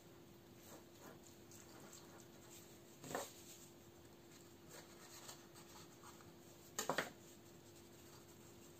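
Faint scraping of a spoon scooping salad filling in a glass bowl, with a soft knock about three seconds in and a couple of quick light taps near seven seconds, over a steady faint hum.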